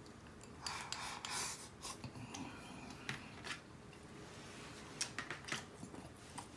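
Faint chewing of a mouthful of shrimp fried rice: soft scraping and crunching noises with a few small clicks.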